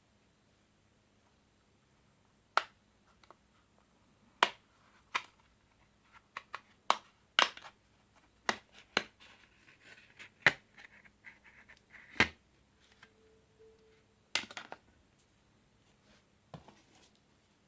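Sharp, irregular clicks and taps from handling a new smartphone and its parts, about fifteen of them, with a brief low tone about three-quarters of the way in.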